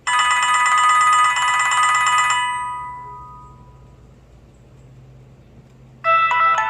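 HTC Desire 530 ringtones playing: a bright chiming phrase of about two and a half seconds that rings out and fades, then a pause, then a second, different ringtone melody starting about six seconds in.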